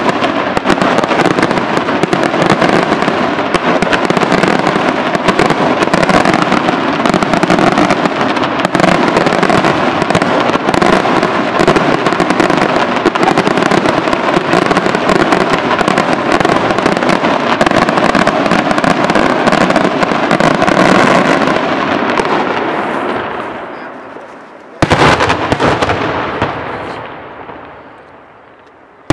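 Daytime fireworks: a dense barrage of rapid, overlapping bangs that merge into one continuous din for about twenty seconds, then die away. Near the end a single loud bang goes off and rolls away in a long echo.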